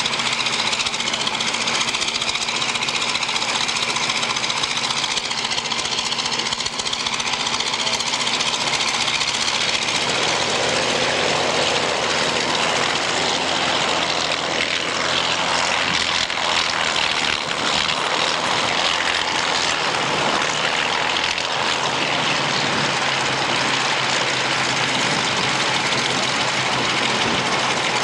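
Vintage biplane's radial piston engine running as it taxis: a steady propeller-engine drone that changes and grows fuller about ten seconds in.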